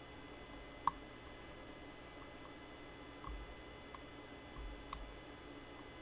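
A lock pick working the pins of a metal ZX5J lock: a handful of small, scattered metallic clicks, the sharpest about a second in, with a few dull knocks, over a faint steady hum.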